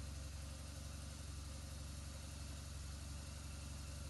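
BMW R1200GS air/oil-cooled boxer twin idling steadily from a cold start, running a little lumpy while still cold.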